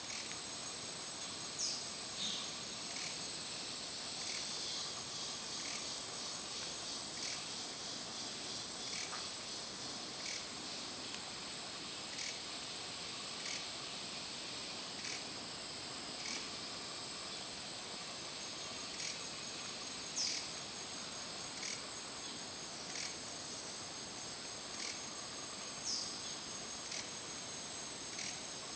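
Forest insect chorus: a steady high-pitched buzz, with faint regular ticks about every second and a half and a few short high falling notes.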